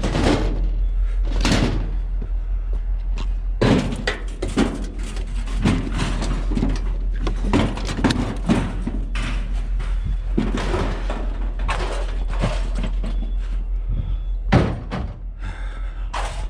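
Repeated irregular knocks, clunks and bangs of scrap and junk being handled and loaded, over a steady low hum.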